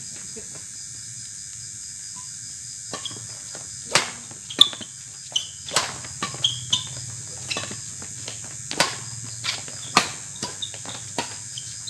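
Badminton rackets striking a shuttlecock in a quick doubles rally that starts about three seconds in: a string of sharp, short hits about every half-second to second. Crickets chirr steadily in the background.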